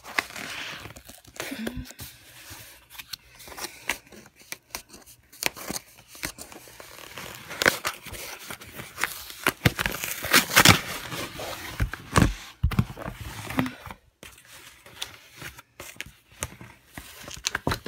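A package being opened by hand: its wrapping tears and crinkles in irregular rustles and sharp rips, loudest about eight and ten seconds in.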